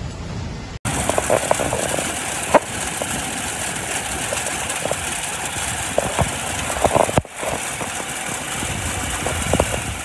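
Hail falling heavily: a dense steady hiss with scattered sharp knocks of hailstones striking, cutting out briefly about a second in and again around seven seconds.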